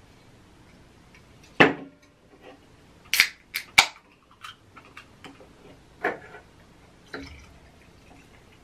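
Aluminium beer can cracked open by its pull tab about three seconds in: a sharp crack with a short fizzing hiss. Around it are a few knocks and clinks of the can and the glass on the table, the loudest about a second and a half in.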